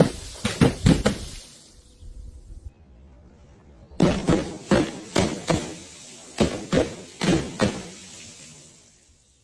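Glass bottles being smashed: a few sharp crashes of breaking glass in the first second, a lull, then a quick run of about ten more crashes, some in pairs, that tails off near the end.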